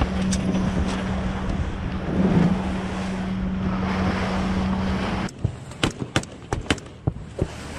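Patrol boat engine running with a steady hum under wind rushing over the microphone. About five seconds in this gives way to quieter water sound broken by a string of sharp, irregularly spaced gunshots.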